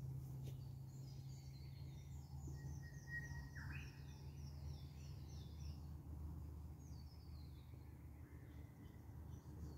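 Faint birdsong at dawn: a run of high, stepping chirps over the first several seconds, a short whistle and a quick rising call about three seconds in, and a few more high chirps near seven seconds, over a steady low background rumble.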